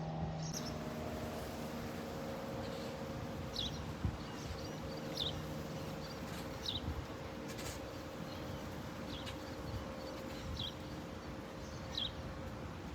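Outdoor ambience: a short high chirp repeats about every one and a half seconds over a steady low hum.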